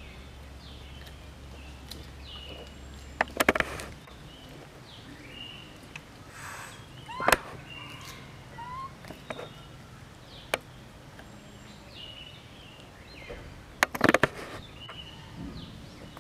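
Small birds chirping over and over in short, quick falling notes, broken three times by a brief cluster of sharp clicks or knocks, about three, seven and fourteen seconds in.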